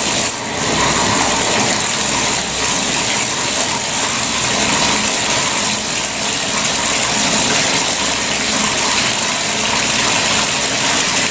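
Bathtub tap running, water pouring and splashing steadily into a porcelain tub as it is rinsed.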